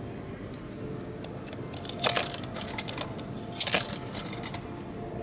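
Coins dropped into a coffee vending machine's coin slot, clattering down through the coin mechanism in two short bursts, about two seconds in and again just before four seconds.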